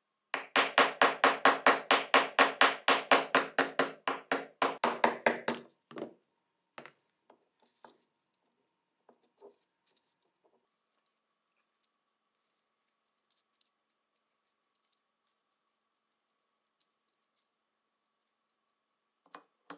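A small hammer tapping a pin punch in a fast even run, about five blows a second for some five seconds, each blow ringing. It is driving a pin out of a rusty Beretta M34 pistol frame that rests on a steel bench block. After it come a few faint clicks and taps of small metal parts being handled.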